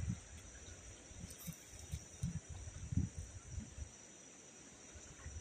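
Insects chirring steadily on a high pitch, with scattered low dull bumps underneath, the loudest about three seconds in.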